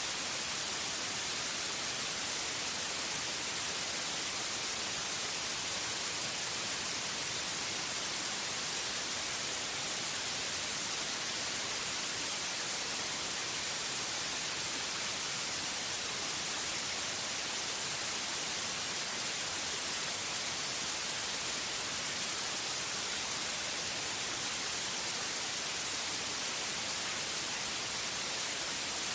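Steady, unchanging white noise: an even hiss with most of its energy in the high frequencies.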